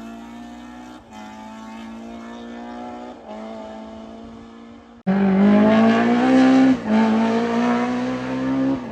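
BMW M3 E30 rally car's S14 four-cylinder engine accelerating hard. Quieter and fairly steady at first, then suddenly much louder about five seconds in, the revs climbing before an upshift about a second and a half later and climbing again to another shift near the end.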